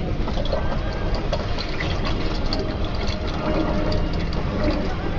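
Oil draining and gurgling out into a container, over a steady low rumble.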